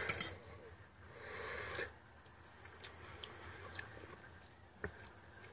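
Quiet mouth sounds of someone tasting sauce off a spoon: a soft breathy sound about a second in that lasts about a second, then faint lip and mouth noises and a light click near the end.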